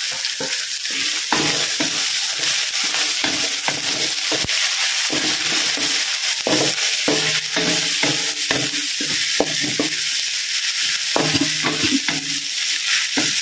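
Chopped shallots, lemongrass, garlic and chilies sizzling in hot oil in a metal wok, with a steady hiss. A wooden spatula scrapes and stirs against the pan in repeated strokes.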